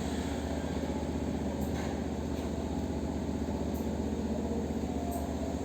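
A steady low mechanical hum, with a few faint soft clicks.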